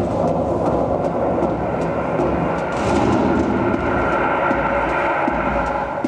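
Dance soundtrack of droning, rumbling atmospheric music with held tones, swelling into a brief whoosh about three seconds in.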